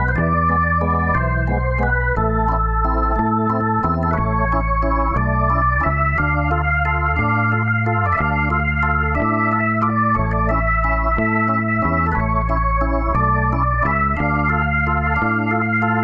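Background music: a keyboard tune with held, organ-like notes over a bass line, the notes changing every half second or so.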